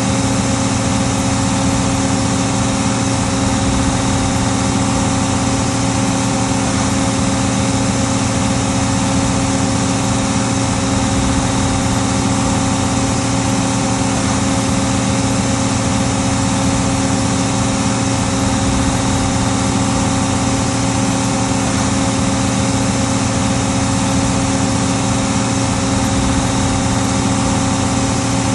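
Case 1570 tractor's six-cylinder diesel engine running steadily at a constant pitch while pulling a five-bottom plow.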